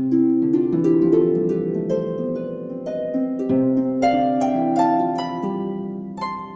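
Background music: a quick run of plucked string notes, each starting sharply and ringing away, several overlapping at once.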